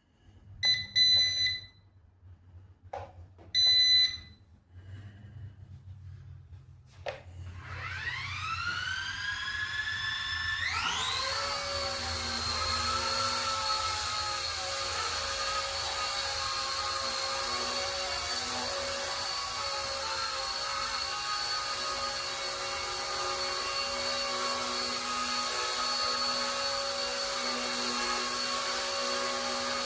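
Two short electronic beeps and a couple of clicks. Then the electric motor of an RC ERA Bell 222 Airwolf micro RC helicopter spools up with a rising whine from about seven seconds in, settling about four seconds later into a steady high whine of motor and rotor that holds to the end.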